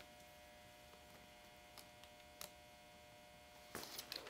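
Near silence with a faint, steady electrical hum. Near the end come a few soft taps and rustles of hands on a cardboard shipping box.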